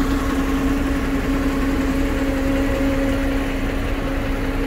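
Diesel bus engine idling steadily, a constant low hum and rumble.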